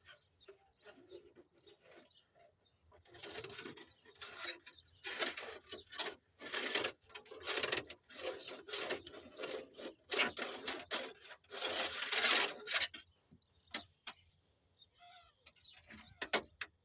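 Irregular rubbing and scraping of hands working around wiring in a tight space, with a few sharp clicks and quieter rustling near the end.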